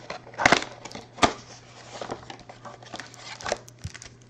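Cardboard trading-card hanger boxes being torn open and the card packs pulled out: crinkling and rustling. Two sharp, loud tearing sounds come in the first second and a half.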